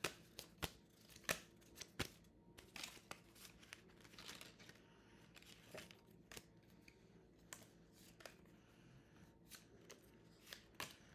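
Exploding Kittens playing cards being handled on a table: a string of soft clicks, taps and slides as cards are drawn, laid down and shuffled back into the draw pile, the louder taps in the first few seconds.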